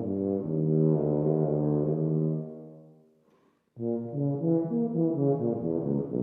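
Tuba playing a melodic line of separate notes that dies away about three seconds in, then, after a short pause, starts a new phrase.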